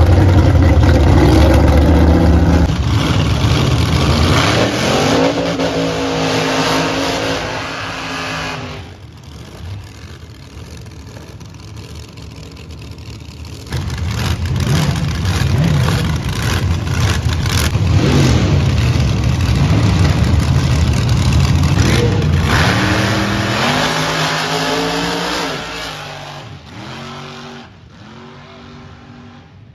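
Drag-racing car engines. First a vintage drag car's engine rumbles loudly as it drives past and pulls away. After a sudden change in loudness near the middle comes a long loud stretch of race-engine noise, then cars launching down the drag strip, their engine pitch rising and dropping back several times before fading into the distance.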